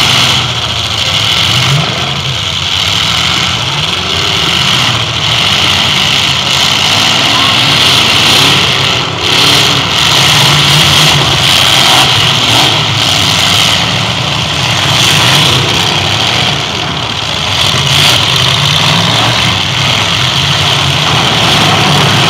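Demolition derby cars' engines running and revving in the pit, with voices in the background.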